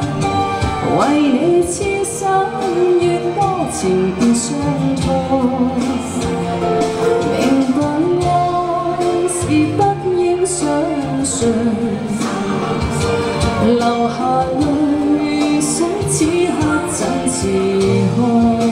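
Woman singing a Cantonese pop song into a handheld microphone, with sustained instrumental accompaniment beneath her voice.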